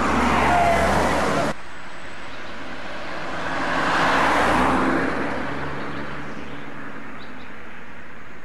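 A car passing by on the road, its noise rising and falling and loudest about four seconds in. A louder stretch of road noise cuts off abruptly near the start.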